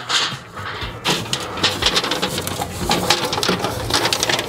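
Aluminium foil drip-tray liner crinkling and rustling as a gloved hand lays it onto a pellet grill's grease drip baffle and presses it flat: a dense run of quick crackles from about a second in.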